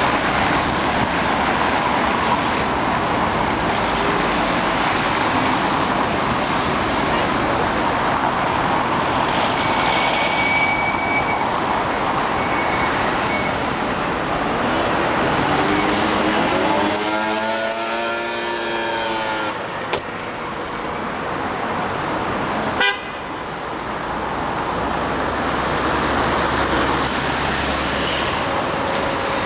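Road traffic on a busy wet city avenue: a steady wash of car engines and tyre noise. Partway through, a short pitched sound with several tones bends up and down, and two sharp knocks follow a few seconds apart.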